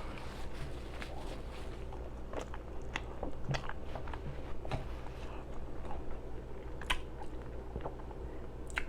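Close-miked mouth chewing a mouthful of pastrami burger, with irregular wet smacks and clicks, one sharper smack about seven seconds in.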